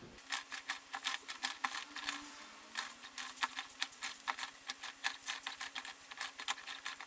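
Mamod toy steam engine on test after its leaking steam pipe was resealed, giving rapid, irregular clicking and spitting over a faint steady hum.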